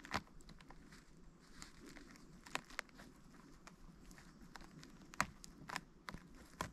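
Footsteps on the forest floor: a handful of sharp, irregular snaps and crackles of twigs and dry litter over a faint steady background.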